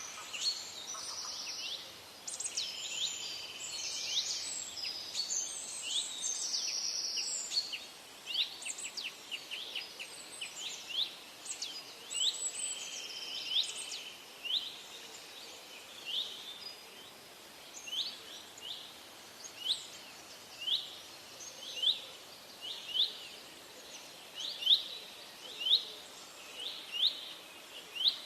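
Birds calling: several overlapping high chirps and trills at first, then from about midway a single short rising note repeated roughly once a second, getting louder near the end.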